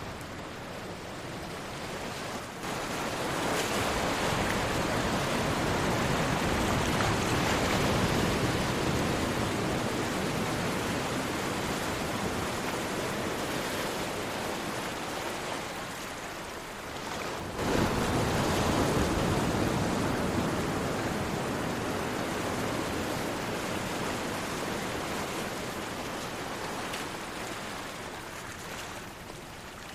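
Sea waves breaking on a shore: two waves, one about two and a half seconds in and another a little past halfway, each a sudden surge of surf that slowly washes back out.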